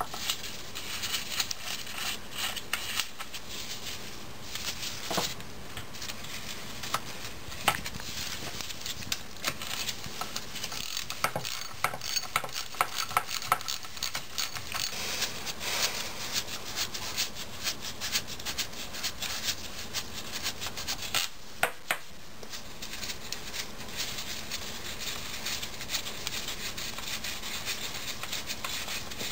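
Hand ratchet wrench clicking in runs as 15 mm bolts are backed out of a 4L80E transmission's extension housing, mixed with rubbing and scraping of metal on metal and a few sharper knocks.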